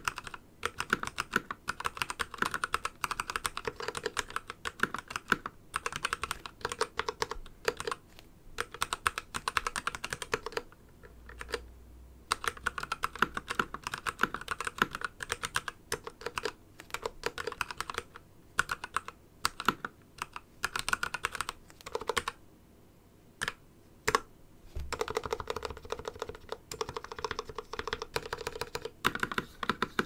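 Typing on a Hansung TFG ART mechanical keyboard with Kailh Art Box Red linear switches, DSA keycaps and a plastic case lined with a full rubber pad: quick runs of keystrokes. The typing pauses briefly about a third of the way in and again about three-quarters through.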